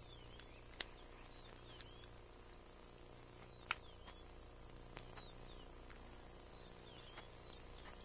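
Steady high-pitched insect chorus like crickets, with a few short bird chirps and several sharp clicks, the clearest about three and a half seconds in.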